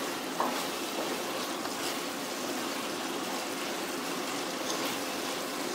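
Prawn masala sizzling and bubbling steadily in a pot as the water the prawns released cooks off, with soft stirring from a wooden spatula.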